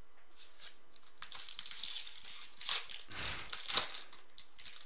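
Silver foil wrapper of a trading-card pack crinkling and tearing as it is opened by hand, with two louder crackles near the middle.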